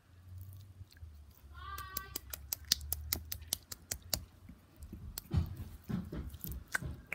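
Slime being squeezed and poked in the hand, giving a rapid run of sharp clicks and pops as air pockets burst. A brief squeaky tone sounds about two seconds in, and low wet squelches follow near the end.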